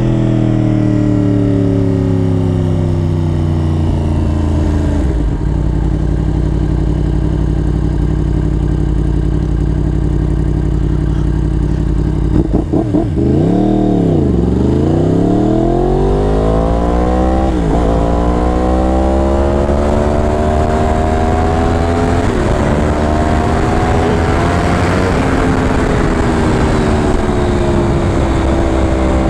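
2015 Yamaha R1's crossplane inline-four engine heard from the saddle, with wind rushing past. The revs wind down and hold, then about halfway drop low and pull hard back up, climbing through two upshifts before easing off near the end.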